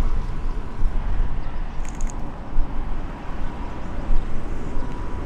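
Low, steady rumble of a jet airliner's engines.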